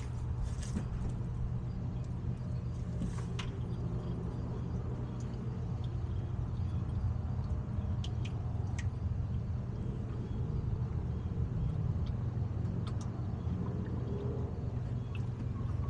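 Car engine idling steadily with a low, even rumble, with a few light clicks over it.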